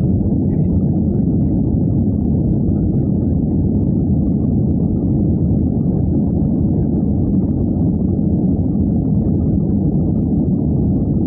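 Airbus A320 cabin noise heard from a window seat: a loud, steady low rumble of the jet engines and rushing air as the airliner moves along the runway.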